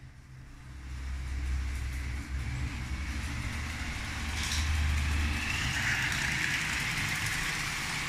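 Lego 12V train with the 7777 steam locomotive running on grey plastic 12V track: a steady electric-motor and wheel rumble with a higher whine, growing louder about a second in as it comes close.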